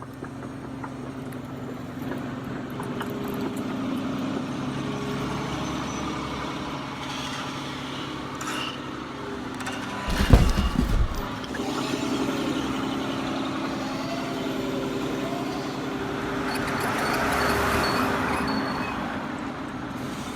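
Small electric gear motors of a radio-controlled toy excavator whirring steadily, their pitch shifting briefly now and then. About ten seconds in there is a short, loud, low rumble and knock.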